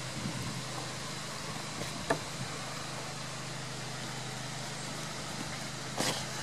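Steady low mechanical hum under a hiss of outdoor noise, with a single soft click about two seconds in and a short brushing noise near the end.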